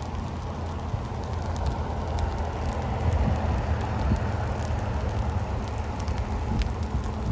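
Grass fire crackling in scattered sharp snaps over a steady low rumble.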